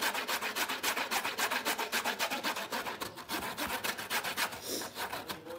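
Horseradish root rubbed up and down a stainless-steel box grater: quick, regular rasping strokes.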